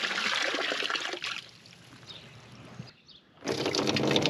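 Water running from the new water line into a horse trough as it fills, a steady splashing trickle. It goes quieter after about a second and a half and drops out briefly about three seconds in. It then comes back with a low steady hum under it.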